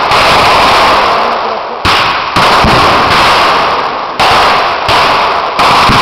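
Blank gunfire: several loud shots in quick succession, a second or less apart, each overloading the microphone and dying away slowly.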